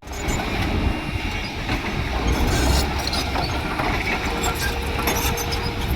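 Heavy construction machinery running: a low, steady engine rumble with scattered metallic clanks and rattles.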